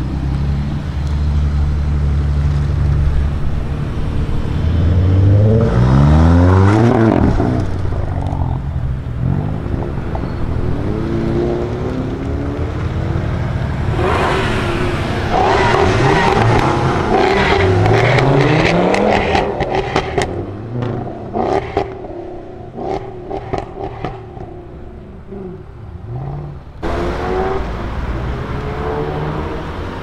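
Performance car exhausts one after another. An Alfa Romeo Giulia Quadrifoglio's twin-turbo V6 runs, then revs and pulls away with a rising note about six seconds in. Later a Jaguar XKR's supercharged V8 accelerates hard, followed by a string of sharp exhaust pops and crackles; near the end a different engine runs at low revs.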